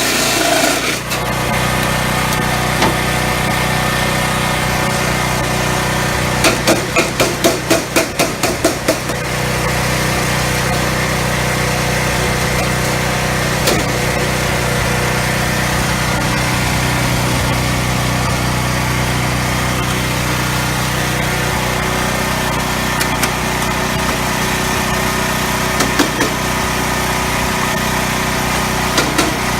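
A seamless gutter forming machine's motor running with a steady hum. About six seconds in comes a quick run of about ten sharp knocks, roughly four a second.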